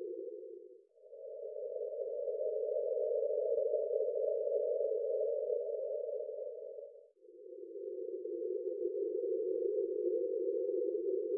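A soft, low whooshing tone that paces the breathing: a narrow band of hiss-like sound in phases of about six seconds. It fades out about a second in, swells back in slightly higher in pitch, then fades out again about seven seconds in and returns lower. The alternating phases cue breathing in and breathing out.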